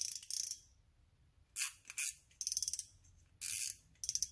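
Shimano Sahara 3000 spinning reel's front drag clicking in about five short bursts of rapid ticks as the spool is turned by hand against the drag.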